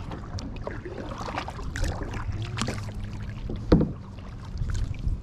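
Small knocks and clicks from a fishing kayak and the gear on it, with one sharper knock near the end, over a faint low steady hum.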